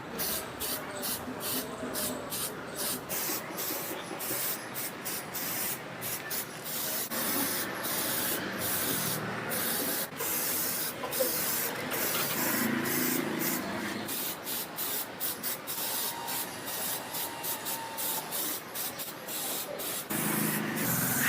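Spray paint hissing out in many short bursts, with brief breaks between them.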